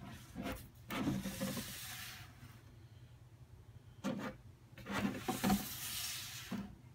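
Hands rubbing and sliding over a large cardboard box as it is handled and turned, in two stretches of scraping, one about a second in and a longer one from about four seconds, with a few light knocks.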